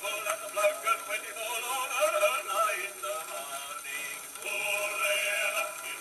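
Homemade acoustic gramophone playing an old record through a sound box and plastic-pipe horn: a male singer with accompaniment. The sound is thin and mid-heavy with no bass, with hiss above it.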